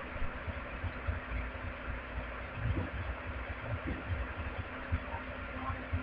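Steady background hiss with a faint low hum, and irregular soft low thumps and rumbles.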